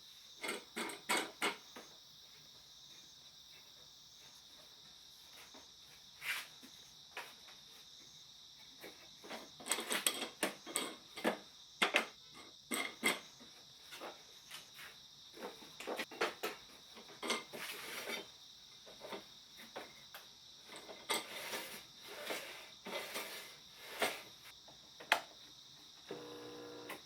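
Scattered light clicks and knocks, irregular and spread through the stretch, with a quiet gap early on, over a steady high-pitched hiss.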